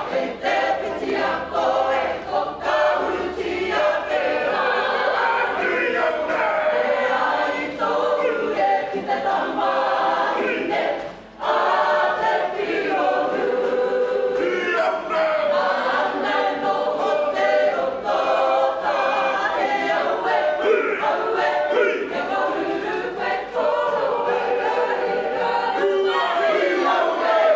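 A group of men's and women's voices singing together, a Māori waiata sung as an action song. The singing breaks off briefly about eleven seconds in, then carries on.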